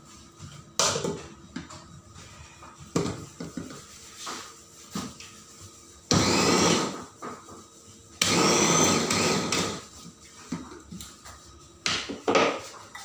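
Electric mini food chopper run in two pulses of about a second and a half each, chopping green chilies, its motor whine rising as it spins up. A few short knocks from handling the chopper bowl and lid come before and after.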